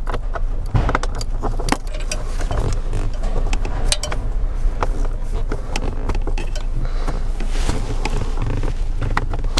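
Scattered light clicks, taps and rustles as a screwdriver is worked onto a blower motor mounting screw behind the wiring harness, with a steady low hum underneath.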